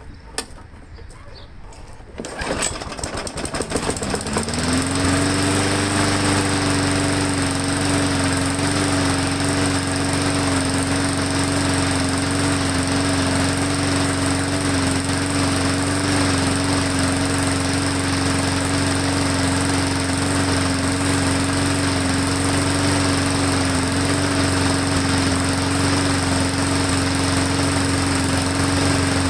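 Briggs & Stratton Classic single-cylinder lawn mower engine catching about two seconds in, speeding up over a couple of seconds and then running steadily at speed. It is hunting only slightly, a little bit of a surge but not too bad, after its carburetor was rebuilt with a new diaphragm and gasket.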